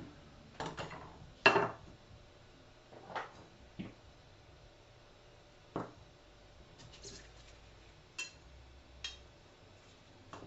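About eight scattered knocks and clinks of small hard objects being handled and set down on the work table, the loudest about a second and a half in.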